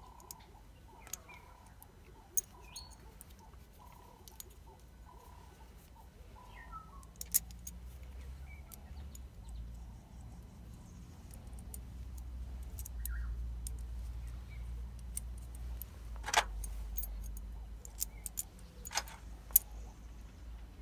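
Scattered sharp metal clicks and clinks from hands working a battery terminal clamp and tool, with birds chirping in the background. A low rumble swells through the middle and eases off near the end.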